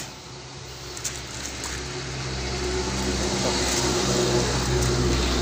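An engine running with a steady low hum that grows louder over the first few seconds and then holds.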